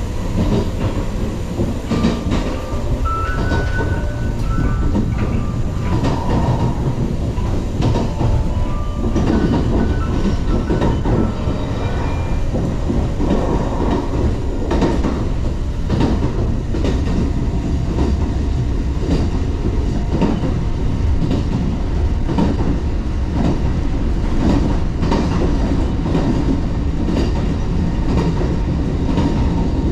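Running noise of a JR West 381-series electric train heard from inside the car by the door: a steady low rumble with the wheels clicking over rail joints. A few brief high-pitched tones sound in the first ten seconds or so.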